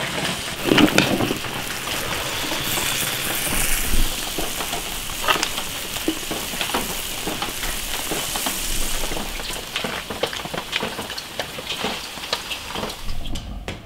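Red-braised beef hooves and their sauce bubbling and sizzling in a large iron wok: a steady hiss with many small pops and ticks.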